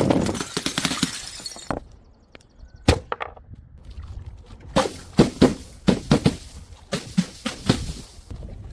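Glass breaking: the tail of a shattering crash fades over the first second or so, then a run of sharp knocks and clinks of glass, thickest from about five seconds in.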